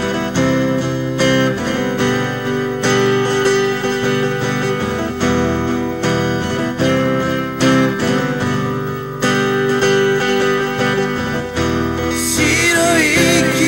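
Acoustic guitar playing a slow intro of chords, each struck in turn and left to ring. A singing voice comes in near the end.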